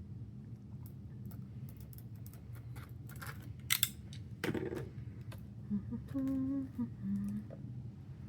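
Album packaging being handled and opened by hand: scattered crinkles, clicks and taps, busiest around the middle, with a few short low steady tones near the end.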